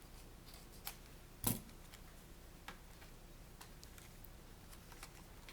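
Scissors cutting folded coloured cardstock: a few faint, separate snips at uneven spacing, the loudest about a second and a half in.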